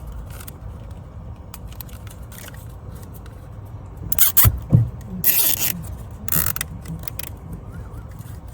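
Nylon zip ties ratcheting as they are pulled tight around a wiring harness: three short zipping bursts in the middle, over faint handling noise.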